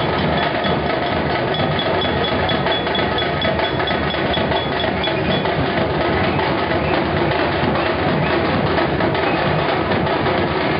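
Loud, continuous drumming from a procession drum band, dense with rapid strokes. A thin, high, steady tone runs over it and stops about halfway through.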